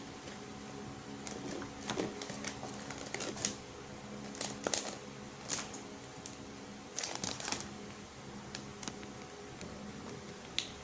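Scattered light clicks and taps of kitchen items being handled, irregular and a few at a time, over a faint steady hum.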